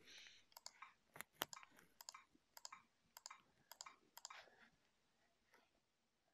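Faint clicks of keys being typed on a keyboard, a run of short keystrokes, many in quick pairs, over about four seconds, then stopping.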